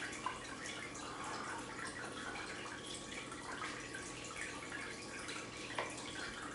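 Quiet kitchen room tone: a steady low hiss and faint hum, with a couple of faint light taps, one just after the start and one near the end.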